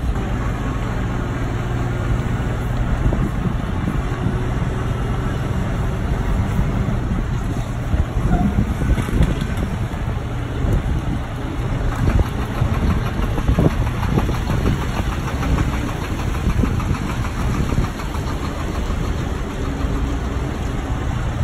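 Diesel engines of refrigerated trucks moving slowly, together with a forklift working nearby. A steady low engine hum with a few scattered clunks through the middle.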